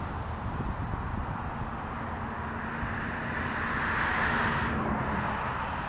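Steady vehicle engine rumble with a faint steady hum, and a hiss that swells and fades about four seconds in.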